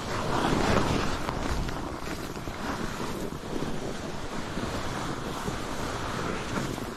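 Skis sliding and scraping over snow in an uneven rush, with wind buffeting the microphone.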